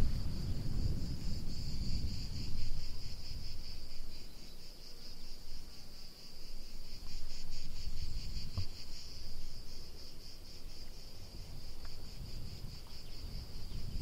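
Insects stridulating in a continuous, finely pulsing high buzz, with a low rumble that swells at the start and near the end and one short knock just past the middle.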